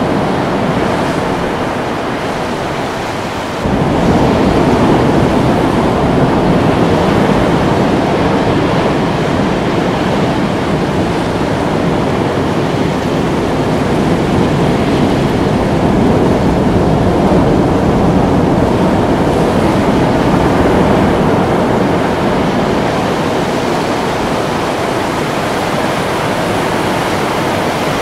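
Ocean surf washing and breaking, a steady rushing noise that jumps up in level, with more low rumble, a little under four seconds in.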